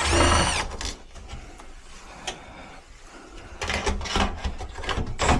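A cordless drill-driver runs briefly and winds down, falling in pitch, as a screw is backed out of the air handler's metal panel. Scattered clicks and rattles of the tool and sheet metal being handled follow, growing busier near the end.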